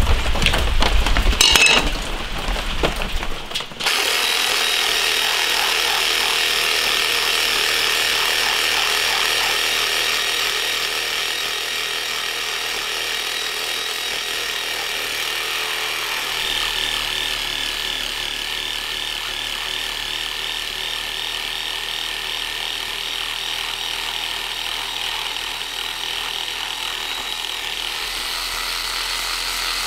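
Cordless reciprocating saw running steadily as its blade cuts through a whole raw beef leg, skin and bone. It starts about four seconds in, after a few seconds of louder low rumbling.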